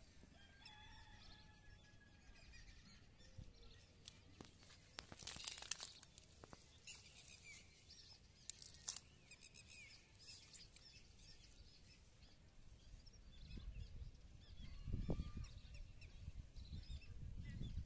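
Quiet outdoor ambience with faint, scattered bird chirps and a few brief rustling clicks.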